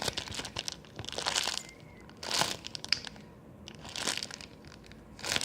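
Plastic packaging crinkling as a squishy toy sealed inside it is squeezed, in several separate crinkly squeezes about a second apart.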